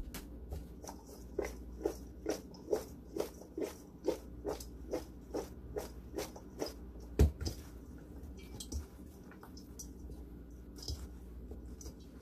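Sliced vegetables (zucchini, carrot, onion and mushroom strips) tossed in a large metal mixing bowl to coat them with oil and seasoning: a rhythmic soft thud of the vegetables landing, a little over two a second, then one much louder thump about seven seconds in. Quieter, scattered sounds of hands mixing the vegetables in the bowl follow.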